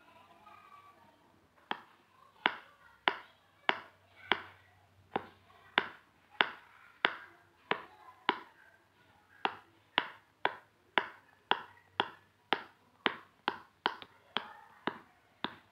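Silicone pop-it fidget toy's bubbles popping one at a time under a fingertip: a sharp pop about every half second, beginning a couple of seconds in.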